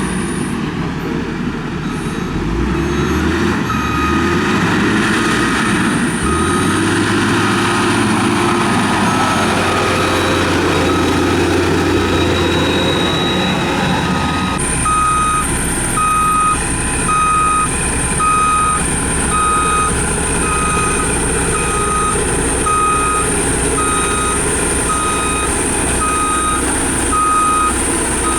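Diesel engine of heavy road-building machinery running steadily while a reversing alarm beeps about once a second: the machine is backing up. The beeps grow much louder about halfway through.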